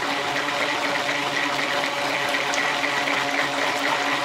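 Handheld stick blender running steadily in a plastic measuring cup of white cold-process soap batter, its motor humming as it churns and lightens the thick batter.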